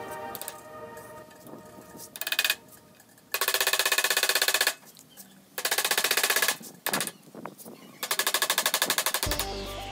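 A hammer striking a steel punch set against the seam of a rusty cast-iron electric water pump housing, working the rust-seized casing apart. It comes as three bursts of rapid metallic strikes, each lasting about a second, with a few single knocks between them.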